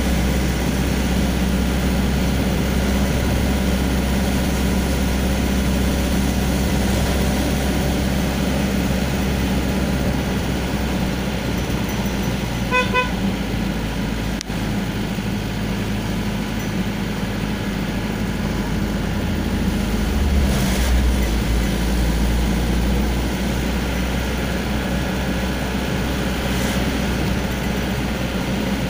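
A vehicle's engine and road noise heard from inside the cabin while driving, a steady low drone that shifts briefly about twenty seconds in. A horn gives two short beeps about 13 seconds in.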